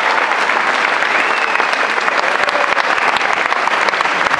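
Audience applauding: many hands clapping at once, steady throughout.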